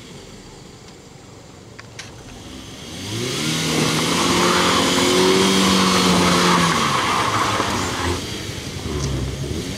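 Front-wheel-drive Toyota Calya's engine revving up about three seconds in and held high for several seconds, with a hiss of front wheels spinning in deep mud as the stuck car tries to pull free, then dropping back.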